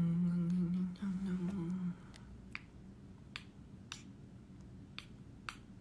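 A man humming a low, almost level note in two short phrases for about two seconds, then several light clicks spaced about half a second to a second apart.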